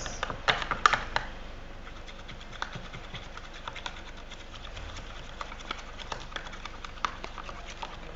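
Hands kneading and squeezing freshly activated clear-glue slime, which has turned chewy: a quick run of sticky clicks and pops in the first second, then faint scattered clicks.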